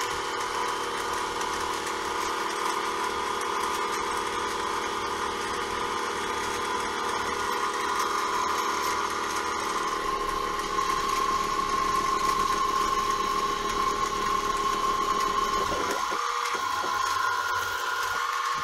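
CNC mini mill running a center-drilling pass: the spindle motor runs with a steady whine as the drill feeds down and then retracts. The tone shifts about ten seconds in, and the low hum drops away near the end.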